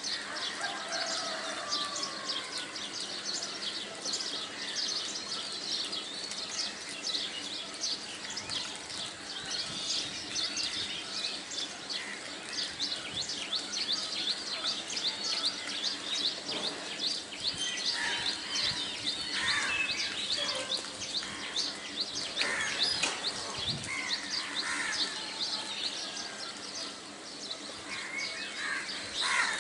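Many small birds chirping rapidly and continuously, a dense chatter of short high calls, with a faint low steady hum beneath.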